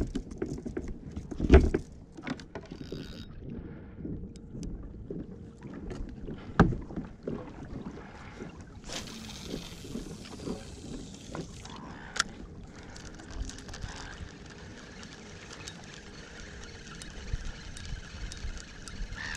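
Fishing from a kayak: two sharp knocks in the first seven seconds, then about nine seconds in a hiss lasting some three seconds as line runs off the reel on a cast, followed by a faint steady reel winding on the retrieve.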